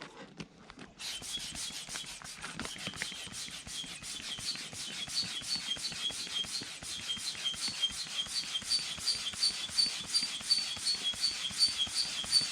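Manual air pump inflating an inflatable boat: rapid, even pumping strokes, about four a second, starting about a second in. Each stroke is a rush of air with a faint high whistle.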